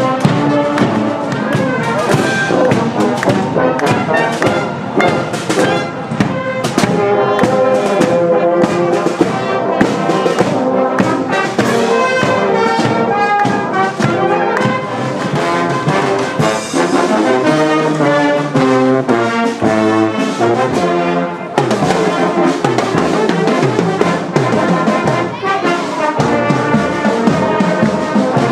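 Brass band playing a tune on the march, with regular drum beats under the brass. The music changes abruptly about three-quarters of the way through.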